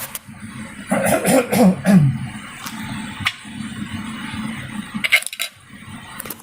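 Small hard clicks and clinks of tools and parts being handled on a workbench, with a short murmur about a second in.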